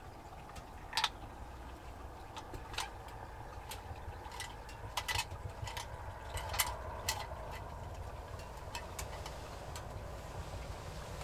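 Wood fire crackling in a stove: irregular sharp pops and clicks, about one or two a second, over a low steady rumble.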